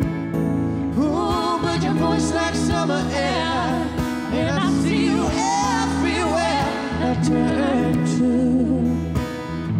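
Strummed Martin acoustic guitar with a male and a female voice singing together in harmony. The voices come in about a second in on long, wavering held notes and ease off near the end.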